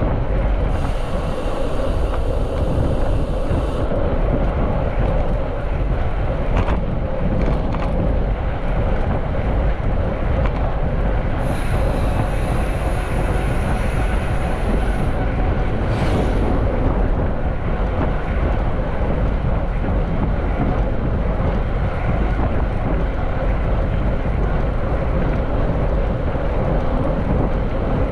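Steady wind rushing over the microphone with tyre and rolling noise from a mountain bike being ridden. A high hiss comes in briefly twice.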